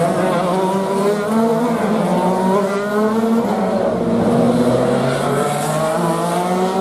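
Open-wheel race cars accelerating out of a corner one after another, engines climbing in pitch through the gears with brief drops at each upshift, several cars overlapping.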